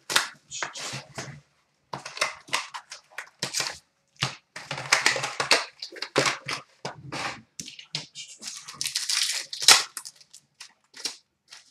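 Foil wrappers of hockey card packs crinkling and tearing in irregular bursts as the packs are ripped open and the cards handled.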